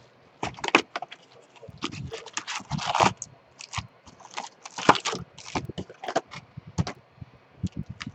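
Trading-card pack wrappers crinkling and tearing, with cards being handled, in many short, irregular crackly bursts.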